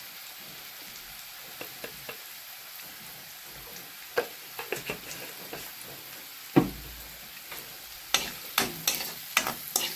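Sliced onions sizzling steadily in hot oil in a metal kadai. From about four seconds in, a metal ladle clinks and knocks against the pan, with one loud knock midway and quick scraping clicks of stirring near the end.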